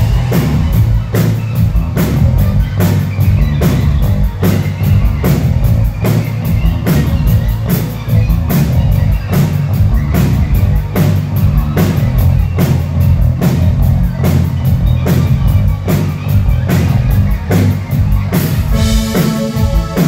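Live rock band playing an instrumental passage: a steady drum beat, about two hits a second, over heavy bass and electric guitar. Held pitched notes come in near the end.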